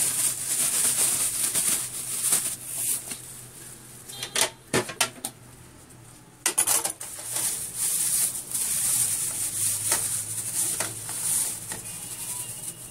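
Plastic bag rustling as it is shaken to coat anchovies in a corn-flour and flour mix. A few sharp clatters of kitchenware come around the middle, then rustling again.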